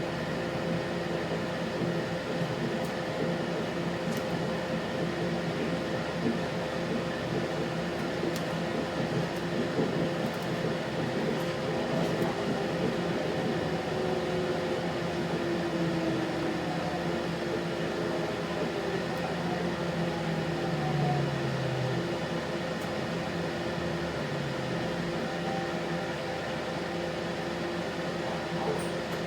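Steady hum of a 3100 series diesel railcar heard from inside the passenger cabin: engine and air-conditioning running. Midway through, a tone slides slowly down in pitch.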